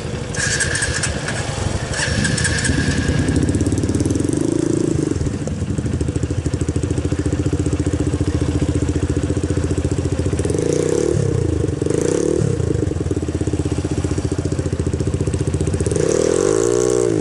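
Dirt-bike engines running steadily, revved up and back down a few times around the middle and again near the end, as a rider throttles a red trail bike up a steep rocky rut on foot. Two short high-pitched whines sound in the first few seconds.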